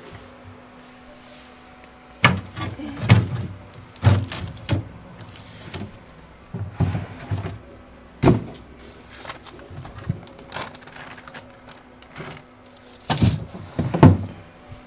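Groceries being put away in an open refrigerator: irregular knocks, bumps and rustling as items and bags are handled and set on the shelves, with two louder bumps near the end, over a steady low hum.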